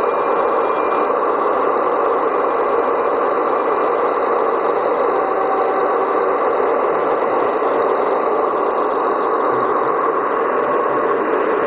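Two Gauge 1 model DB class 211 diesel locomotives in double heading, pulling a loaded ore train and running past at close range: a steady mechanical running noise from the motors, gears and wheels on the track.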